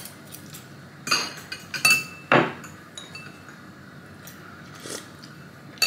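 Metal spoons and forks clinking and scraping against ceramic bowls and plates while food is served and eaten: about half a dozen separate clinks, one just before two seconds in ringing briefly and the loudest about two and a half seconds in.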